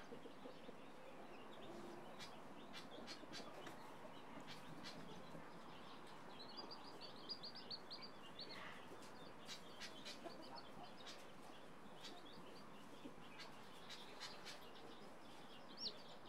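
Chicks peeping faintly: short high cheeps scattered throughout, with a quick run of them about seven seconds in, over a faint background hiss.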